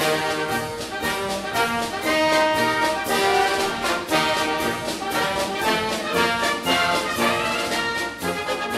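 Orchestral background music led by brass, with held notes over a steady percussive beat.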